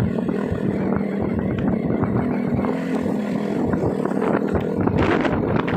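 Motorcycle engine running steadily while riding, with uneven wind rumble on the microphone.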